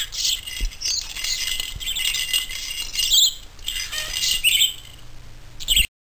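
Budgerigar chattering and warbling, a fast stream of high chirps and squeaky notes with short lulls, cutting off abruptly near the end.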